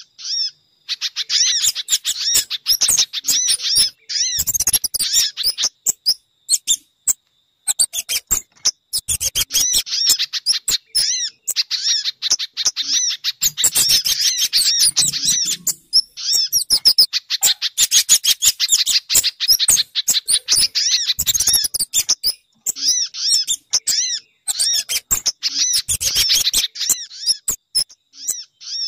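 Bird lure recording of small birds, the kind called sogon, pijantung (spiderhunter) and kemade, calling: rapid high chirps in long dense runs broken by short pauses.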